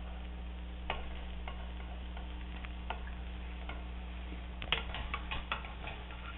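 Metal spatula scraping and tapping against a nonstick frying pan as it works under a cooking omelette to lift and fold it, a few scattered light clicks and a quick cluster of them near the end. A faint sizzle of the egg frying in butter runs underneath.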